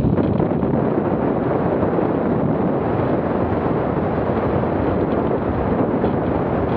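Steady rush of airflow buffeting the microphone of a camera mounted on a hang glider in flight. It is an even roar with no breaks or beeps.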